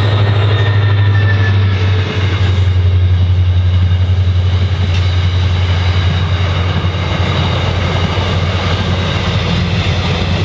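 Intermodal freight train's container wagons rolling past close by, a loud, steady rumble of steel wheels on rail.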